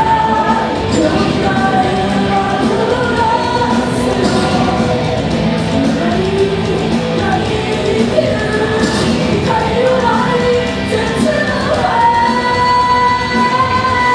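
Live rock music with electric guitars and a sung vocal melody, ending in a long held note near the end.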